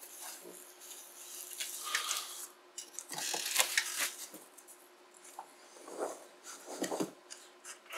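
Bubble wrap and a cardboard shipping box rustling and crinkling in several short bursts as a bubble-wrapped keyboard is lifted out of the box, with a couple of duller bumps near the end.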